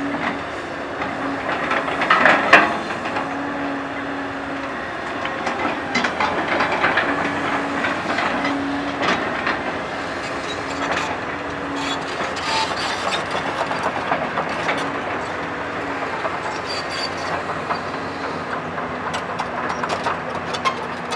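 CAT 320D hydraulic excavator at work: its diesel engine runs steadily, with a tone that comes and goes as the hydraulics take load, over scattered clanks and scrapes of the bucket and undercarriage. The loudest clatter comes about two and a half seconds in.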